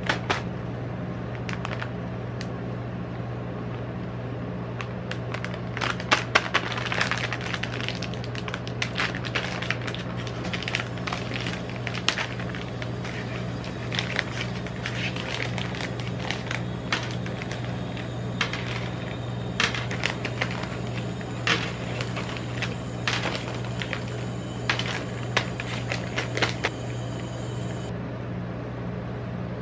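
A rolled ice cream machine hums steadily and low under its steel cold plate. Scattered light clicks and taps come from things set down or handled on the metal plate.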